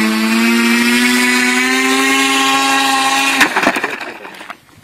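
Radio-controlled flying-wing model plane's electric motor and rear pusher propeller whining as they spin up, the pitch rising slowly. About three and a half seconds in, a sharp crack as the airframe breaks apart; the whine stops, and a few clattering knocks from the pieces fade out.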